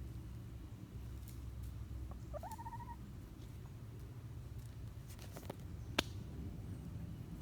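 A chicken gives one short call that rises and then holds, about two and a half seconds in, over a steady low rumble. A few clicks follow near the end, one of them sharp.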